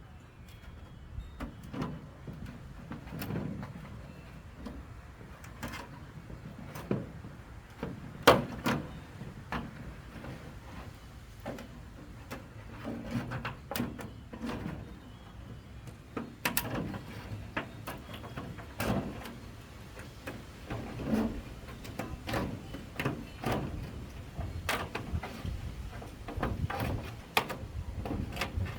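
Irregular knocks, clicks and scrapes, the loudest about eight seconds in, from cutting and handling roof panels by hand; no power tool runs.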